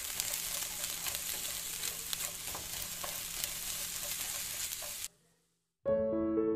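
Minced meat and peas sizzling as they dry-fry in a pan: a steady hiss with scattered small crackles and pops. The sizzle stops about five seconds in, and piano music begins just before the end.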